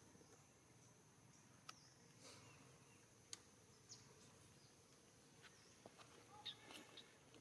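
Near silence: faint outdoor ambience with a steady high insect buzz, broken by a few faint short clicks and chirps, a small cluster of them near the end.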